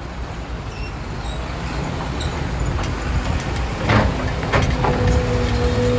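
Heavy diesel construction machinery (excavators and trucks) running with a low rumble, with a few metallic clanks about four seconds in, followed by a steady whine.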